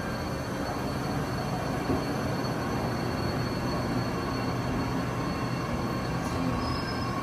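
Train running steadily, with an even rolling rumble and a faint high whine that grows stronger in the second half.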